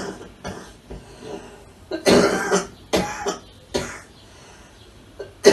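A man coughing and clearing his throat: one loud cough about two seconds in, then two shorter ones.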